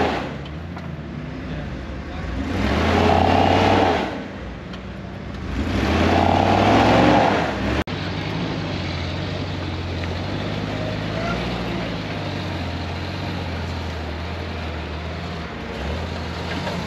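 Lifted Jeep's engine revving hard in three surges of a second and a half or so each as it climbs a slickrock ledge, the pitch rising and falling with each push. After an abrupt break about eight seconds in, an engine runs steadily at low revs as a Jeep crawls over the rock.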